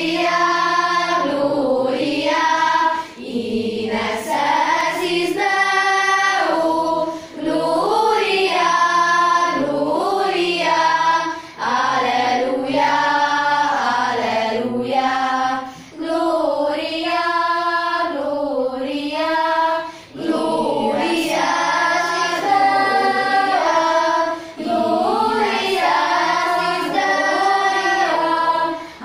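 Girls' school choir singing together, in phrases broken by short breaths every few seconds.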